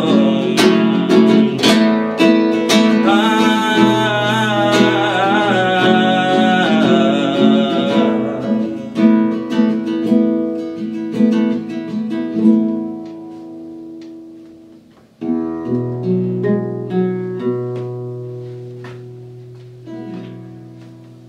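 Acoustic guitar accompanying a man's voice, closing a ballad: the voice holds a final wordless line for about the first eight seconds, then the guitar plays on alone and strikes a last chord about fifteen seconds in that rings out and fades away.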